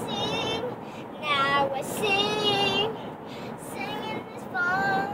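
A young girl singing a made-up song in short phrases, with one long held note about two seconds in, over steady road noise inside a moving car's cabin.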